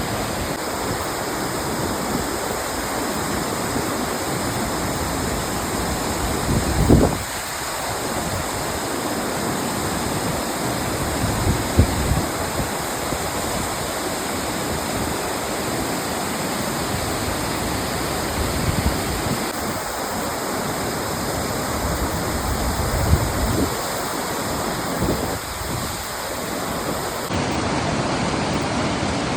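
Mountain river rushing over rapids below a waterfall, a steady rush of water, with a few low thumps on the microphone, the loudest about seven seconds in.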